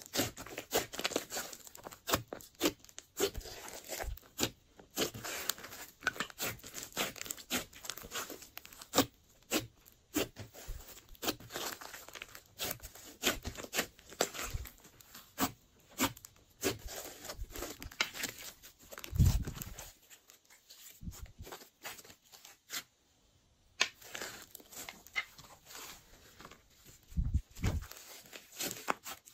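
Glossy slime being squeezed, folded and stretched by hand: a dense, irregular run of wet clicks, crackles and pops as air pockets in the slime burst. A few deeper thumps break in, one about two-thirds of the way through and two more near the end.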